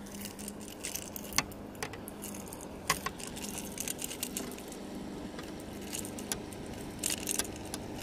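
Fishing tackle being handled: scattered sharp clicks and light metallic jingling from the lure, line and pliers as a small pickerel is unhooked and swung in, over a steady low hum.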